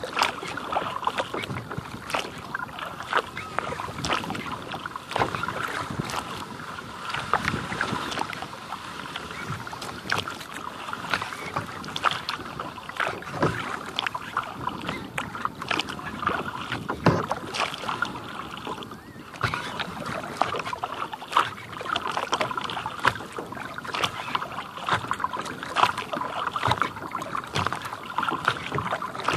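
Kayak being paddled on calm water: paddle blades dipping and dripping, with water splashing and lapping against the plastic hull in a steady, irregular patter. There is a brief lull about two-thirds of the way through.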